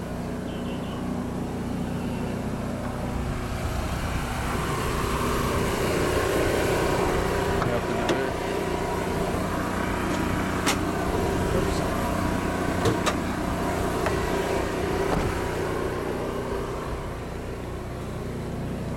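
Cummins Onan QG 4000 RV generator running with a steady hum, powering the rooftop air conditioner. A few light clicks fall in the middle.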